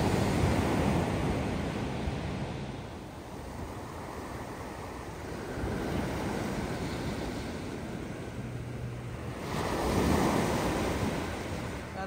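Ocean surf breaking and washing up a pebbly sand beach. The sound swells and eases with the waves: loud at the start, quieter a few seconds in, then building again to a peak near the end.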